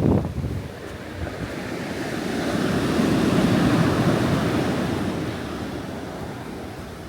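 Sea waves on the shore: one wave swells up and washes back out, with gusts of wind buffeting the microphone at the start.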